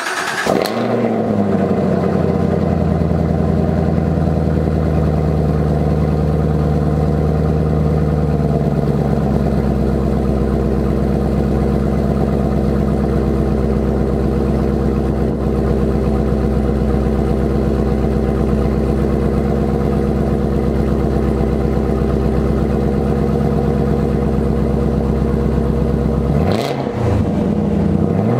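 2018 Chevrolet Camaro ZL1 1LE's supercharged 6.2-litre LT4 V8 through its stock exhaust, running at a fast cold-start idle that slowly drops over the first eight or nine seconds and then settles to a steady idle. Near the end the engine is revved: the pitch climbs and falls back, then starts to climb again.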